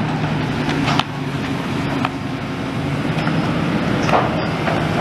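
Diesel engine of a demolition excavator with a grab running steadily, with a couple of brief knocks from the demolition work.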